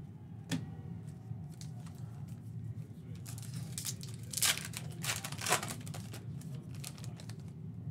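Foil wrapper of a trading-card pack being torn open by hand, a run of crinkling rips with the two loudest tears about four and a half and five and a half seconds in, after a single click near the start.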